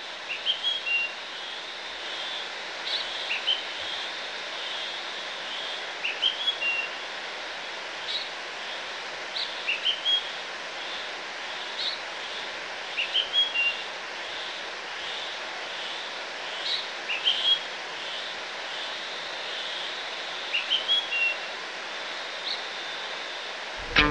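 A songbird singing short chirping phrases, one every two to three seconds, over a steady hiss of outdoor background noise.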